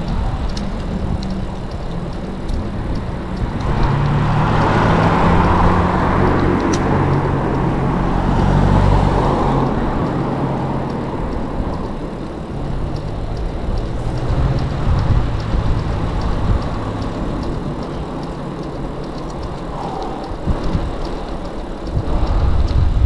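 Riding noise from a bicycle on a paved path, with road traffic alongside. The traffic swells louder about four seconds in and fades again by about ten seconds.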